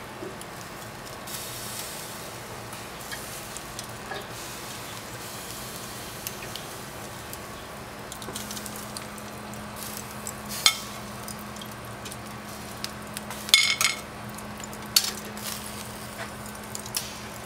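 Skewered beef sizzling over charcoal on cast iron grill grates, a steady hiss with a faint low hum underneath. Several sharp metal clinks of the steel skewers against the cast iron grate break in, the loudest around the middle and two-thirds of the way through.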